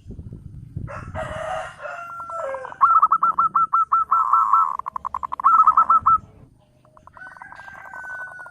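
Zebra dove (perkutut) cooing: runs of quick, evenly pulsed notes that break off after about six seconds and start again about a second later. A rougher, harsher call comes about a second in.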